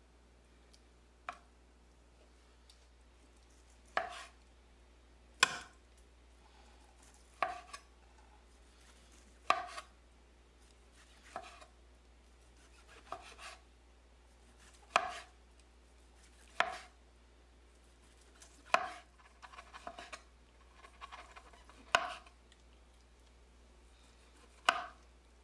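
A wide-bladed knife slicing cooked pork shoulder on a cutting board: a sharp knock each time the blade meets the board, one every one and a half to two seconds. In the last third there is a short run of lighter taps and scraping.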